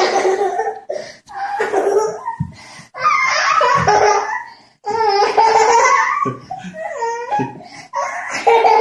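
Hearty, high-pitched laughter in several long bursts with short breaks between them.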